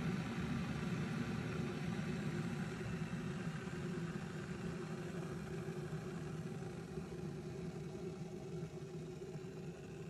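Cuisinart CPK-17 stainless steel electric kettle heating water, its blue light on: a steady low rumble with a hiss, slowly getting quieter.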